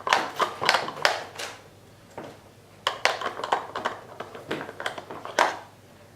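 Hard plastic pieces of a treat-puzzle toy clacking and knocking together, bones lifted and dropped on the plastic disc, in two bursts of rapid clicks with a short lull between.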